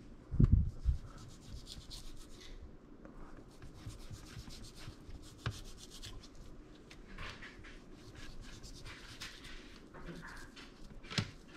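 Fillet knife slicing thin layers of hard fat off beef ribs on an aluminium sheet pan: soft, irregular scraping and rubbing strokes. A dull thump about half a second in, and a short sharp sound near the end.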